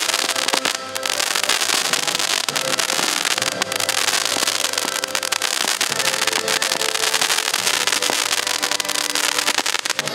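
Fireworks going off continuously: a dense, unbroken crackle with many sharp bangs overlapping, with music underneath.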